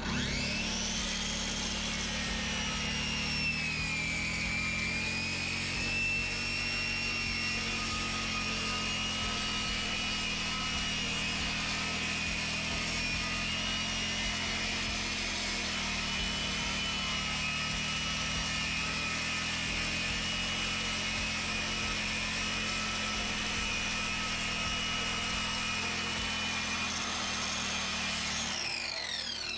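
Circular saw cutting along the edge of a subfloor sheet in one long continuous cut: a steady high whine that dips a little as the blade bites in, then winds down near the end as the trigger is released.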